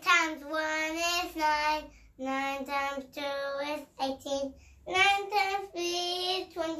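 A young boy singing the nine times table in a sing-song voice, in short phrases with brief pauses between them.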